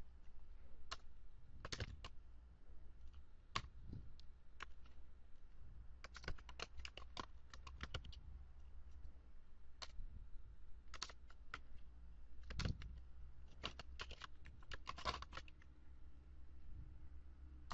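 Computer keyboard typing, faint, in short irregular runs of keystrokes with pauses between, over a faint low hum.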